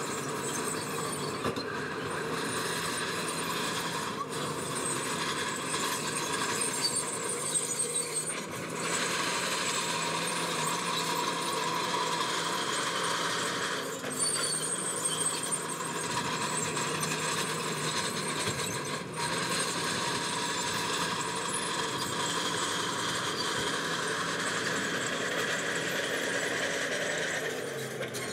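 Diesel heavy earthmoving machinery running steadily, with a high metallic squeal over the engine and a few short knocks.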